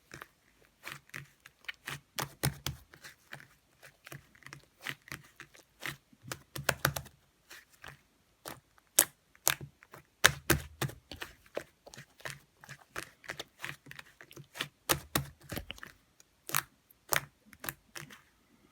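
Slime being squeezed and pressed by hand, making rapid irregular clicks and pops that come in clusters.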